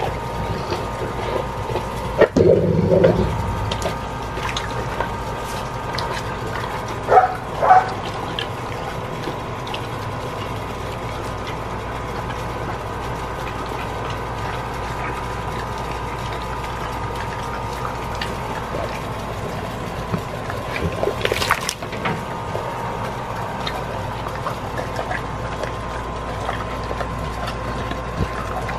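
A pit bull mix chewing, licking and smacking on raw pork skin: wet, irregular mouth noises, with a few louder bursts of gnawing and smacking spread through the stretch.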